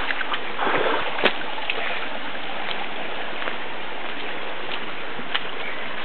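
Steady rush of flowing water from a stream or waterfall, with a single sharp click about a second in.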